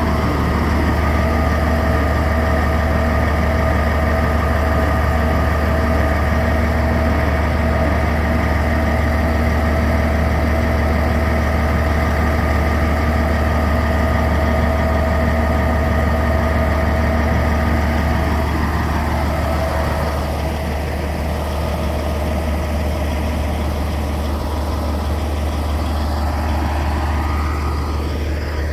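Cat C27 V12 diesel engine of a Peterson 5710C horizontal grinder running steadily, with a deep drone and whining machine tones. About two-thirds of the way through, a whine falls in pitch and the sound eases off slightly.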